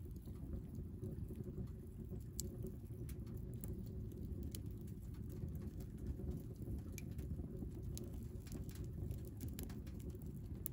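Split wood burning in a small titanium tent stove: a steady low rumble of the fire with scattered crackles and pops from the burning wood, coming more often toward the end.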